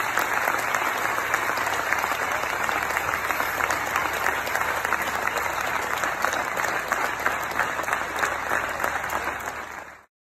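Audience applauding: many hands clapping in a dense, steady patter that fades and cuts off near the end.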